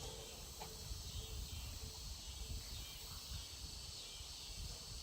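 Faint, steady chorus of insects, with an uneven low rumble underneath.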